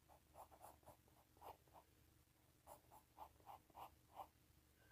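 Faint scratching of a wooden pencil drawing on paper: a few short strokes, a pause near the middle, then a quick run of about seven more.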